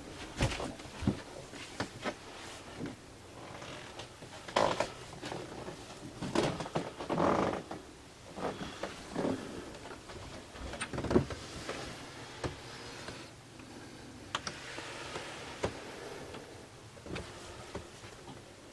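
Irregular knocks, bumps and rustling in a small boat cabin: handling noise and footsteps from someone carrying a handheld camera through the cabins.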